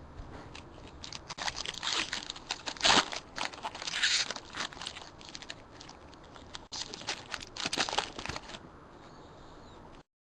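Foil trading-card pack wrappers crinkling and tearing as packs are opened by hand, with cards rustling. It is a dense run of crackles that thins out about a second and a half before the end.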